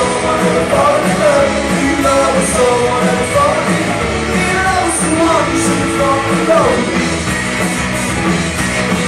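A live rock band playing a cover song, with a singer over the band.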